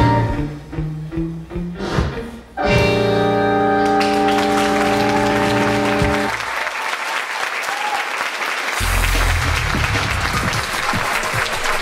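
The dance music ends on a long held chord while audience applause rises and continues. About three-quarters of the way through, a deep low musical tone comes in under the clapping.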